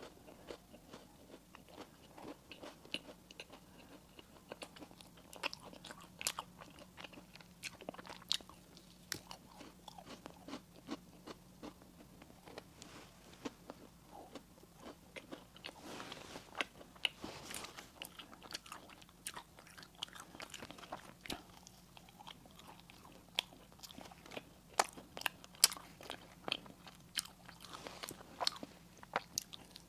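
Close-miked eating: a person biting and chewing crunchy pastry or sweets, with many sharp crunches and clicks throughout, busiest in the middle and toward the end.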